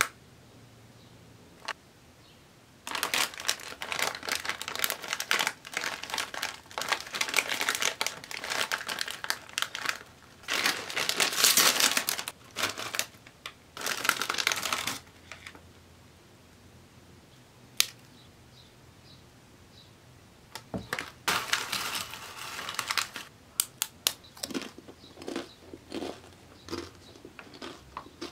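Foil Doritos chip bag crinkling in long bursts as it is squeezed, handled and torn open, then a scatter of light clicks near the end as tortilla chips go into a bowl.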